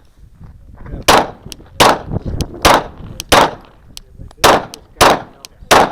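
Seven shots from a 9mm Glock 19 pistol fired at a steady pace, about one every 0.7 seconds, starting about a second in, with fainter sharp cracks between them.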